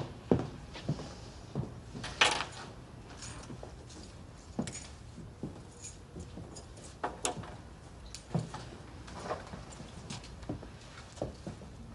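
Keys jangling and clinking as several sets of apartment keys are taken out and set down on a counter one after another, in a string of short separate clinks, the loudest about two seconds in.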